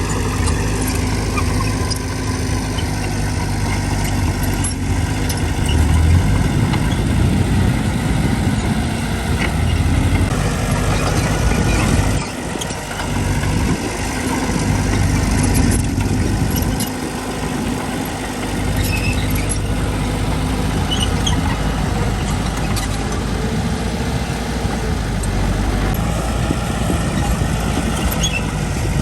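Diesel engine of heavy earthmoving machinery running steadily, its level dipping briefly twice.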